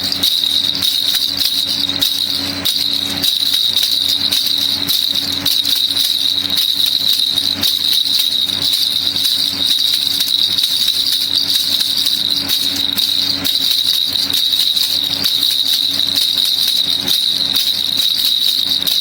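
Baby rattle (kilukiluppai) shaken without a break: a dense, even rattle of many small clicks with a steady high ring over it.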